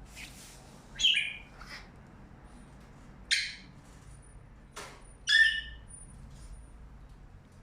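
A pet parrot giving three loud, short squawks, about a second in, a little after three seconds and just after five seconds, with a few softer calls between.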